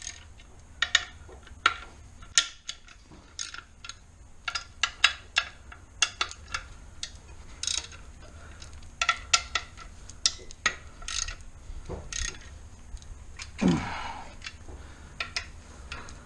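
Ratchet wrench clicking and sockets clinking as spark plugs are broken loose and backed out of a car engine. The plugs turn easily because they were not tight. About two-thirds of the way through comes a short squeak that falls in pitch.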